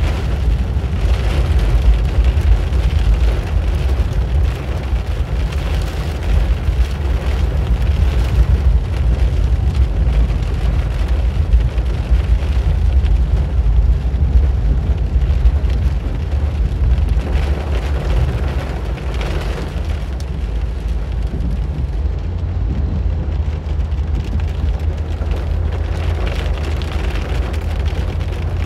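Road noise inside a car's cabin at highway speed: a deep steady rumble with the hiss of tyres on wet pavement, the hiss swelling a couple of times.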